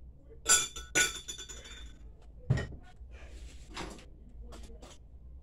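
A glass cup clinks twice about half a second apart, each strike ringing briefly. A duller knock follows about two and a half seconds in, then softer handling noises.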